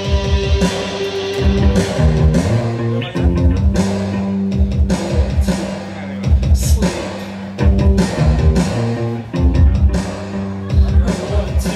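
Live post-punk band playing, amplified through a club PA: electric guitar over steady held bass notes, with regular drum-kit hits.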